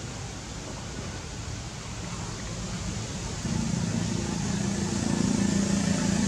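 Steady outdoor background hiss, joined about three and a half seconds in by a louder, steady low motor hum that carries on.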